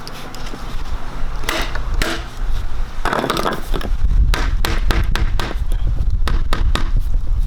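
Irregular sharp clicks and knocks of hands working with parts and glue, coming thick and fast in the second half, over a low rumble.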